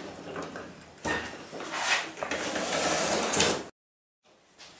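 Mountfield M64PD rotary lawnmower being turned around on a metal workbench, its wheels and deck scraping and rumbling across the metal top in a few bouts. The sound cuts off suddenly about three-quarters of the way through.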